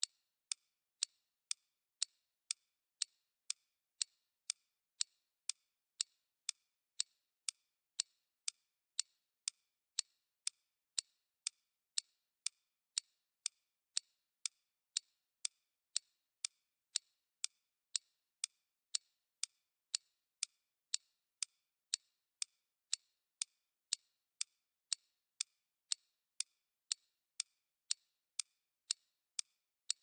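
Clock's second hand ticking steadily, about two sharp ticks a second.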